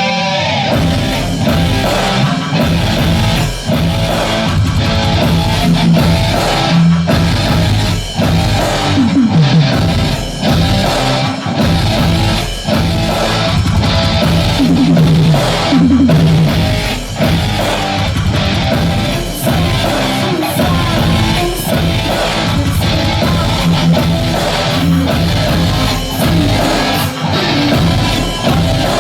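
Live rock band playing loud: a distorted electric guitar riff over a heavy drum beat.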